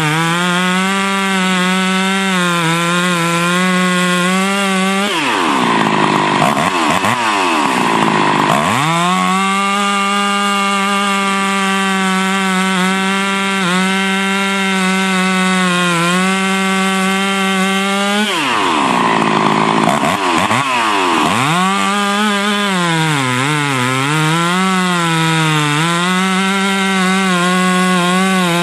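Freshly rebuilt Husqvarna 372XP two-stroke chainsaw at full throttle, cutting rounds off a log. In the wood the engine holds a steady, pulled-down pitch. Twice, about five and eighteen seconds in, it revs up to a higher pitch as a cut breaks through, then drops back as the chain bites into the next cut.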